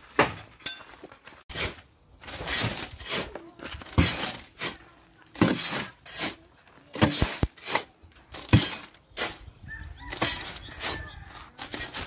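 Gravel being shovelled into a plastic wheelbarrow: the shovel scrapes into the pile and each load tips in with a rattling rush of small stones, repeating about every second or so.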